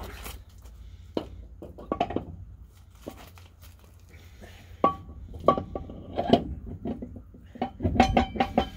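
Metal parts clinking and knocking as a monster truck's differential third member is fitted into the rear axle housing and its bolts and tools are handled: scattered short ringing clinks, with a quick run of them near the end.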